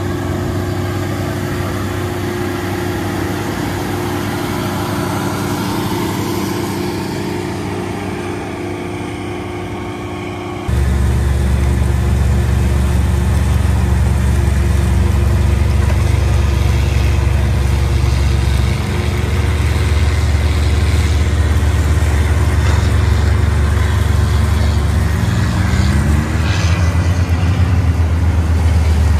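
Big Bud 450 tractor's diesel engine running steadily under load while pulling a moldboard plow, a deep drone with several steady tones. It jumps abruptly louder and deeper about ten seconds in, and a brief rising pitch sounds near the end.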